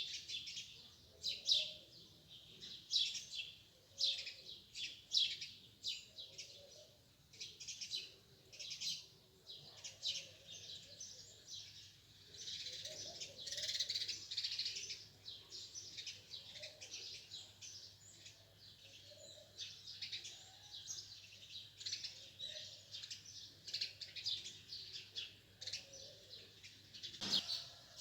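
Many small birds chirping together in a dense, overlapping chorus of short high chirps, busiest about halfway through. A single sharp click sounds near the end.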